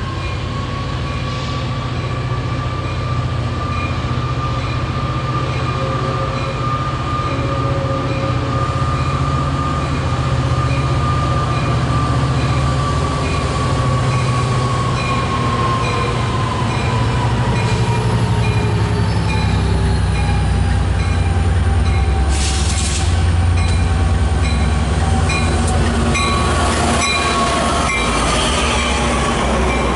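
Metrolink EMD F59-series diesel locomotive pulling its train in, its engine running with a steady low drone and a whine that slowly falls in pitch, growing louder as it draws near and passes. A faint ping repeats about once a second.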